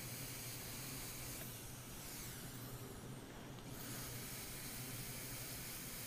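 Faint steady hiss over a low constant hum, with no distinct start or stop of a drill motor.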